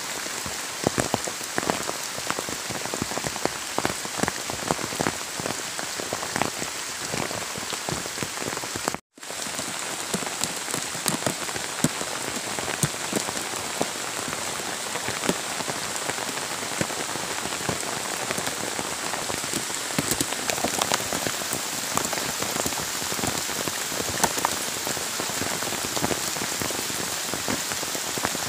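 Rain falling steadily on leaves and wet ground, with many separate drops striking close by. The sound cuts out for a moment about nine seconds in.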